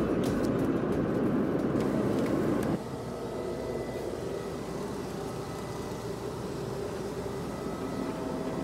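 Steady airliner cabin noise, a broad rumble of engines and airflow in flight. About three seconds in it drops to a quieter steady hum with faint steady tones, heard inside the aircraft's lavatory.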